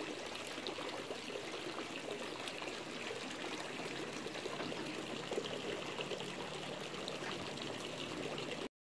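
Steady trickle of running water, cutting out abruptly just before the end.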